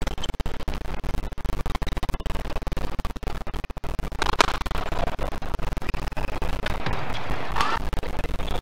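Badminton doubles rally: a quick run of sharp clicks from shuttlecock hits and players' shoes on the court, over arena noise. Two louder sharp sounds come about four and a half and nearly eight seconds in.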